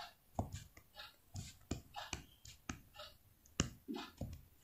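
Stylus tapping and scratching on a tablet screen during handwriting: a string of faint, irregular clicks, about three or four a second.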